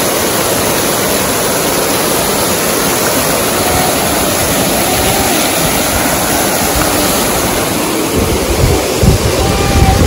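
Park fountain's many water jets splashing down into the pool: a steady rush of falling water. Bursts of low rumble come in the last two seconds.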